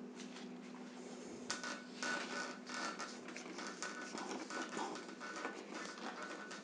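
Irregular scraping and rubbing of hands working a bicycle handlebar grip, with brief faint squeaks, starting about a second and a half in over a steady low hum.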